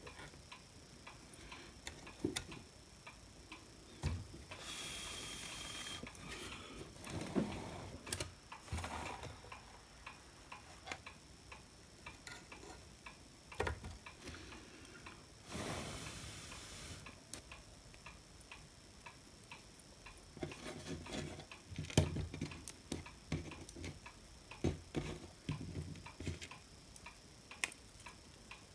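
Scattered small clicks and taps of parts being handled at a workbench, with two short hissing bursts, one about five seconds in and one about fifteen seconds in.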